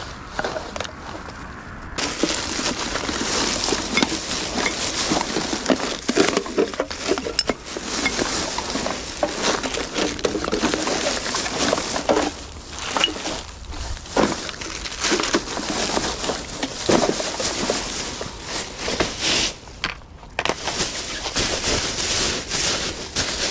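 Plastic rubbish bag full of litter rustling and crinkling as it is handled, with many sharp crackles from the wrappers and packaging inside. The noise starts about two seconds in and drops away briefly near the end.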